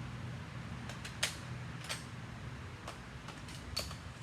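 Plastic clicks and clacks from a Nerf Sledgefire foam-dart shotgun being worked between shots: about five separate sharp clicks, the loudest about a second and a quarter in.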